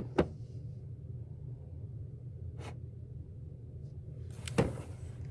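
Small toys and doll-feeding things being handled: a sharp click just after the start, a faint tap in the middle, and a brief rustle with a knock near the end, over a steady low hum.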